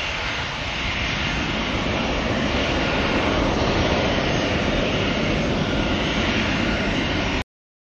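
Jet engine noise from an Airbus A300B4-622R climbing out after takeoff, its two Pratt & Whitney PW4158 turbofans at high power: a steady, rumbling sound that grows slightly louder a second or two in, then cuts off suddenly near the end.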